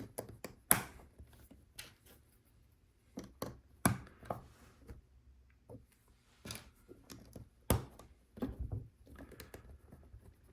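LEGO plastic bricks being handled and pressed together: a series of irregular sharp clicks and light knocks, the loudest about a second in, near four seconds and near eight seconds.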